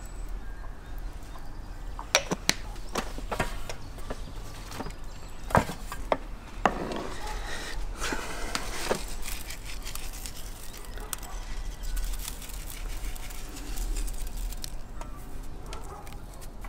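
Hand sounds of seasoning meat: a few light clicks and knocks from a small spice container and saucer, and a rustling stretch in the middle as ground spice is shaken and pinched, over a low steady rumble.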